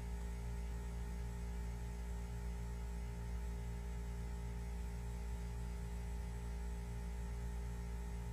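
Steady low electrical hum with a faint hiss and nothing else: mains hum in the recording.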